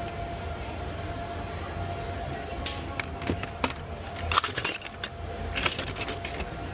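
Metal hand tools clinking against each other as they are handled, with a run of sharp clinks from about three to six seconds in, over a steady background hum.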